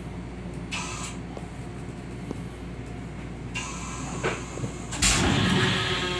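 Metro-North M7 electric railcar running, heard from inside the car as a steady low rumble. Short hisses come about a second in and again halfway through, then a loud, sudden rushing whoosh starts about five seconds in and lasts just over a second.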